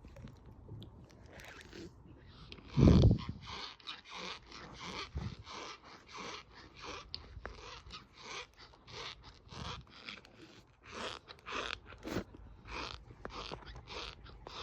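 Cornstarch powder crunching in a steady series of short crunches, about two a second, with a heavy thump about three seconds in.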